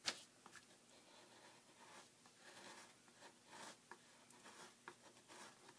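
Faint, uneven scraping of a small knife blade against a book's cover board as leftover mull and paper are picked off, with a few small ticks.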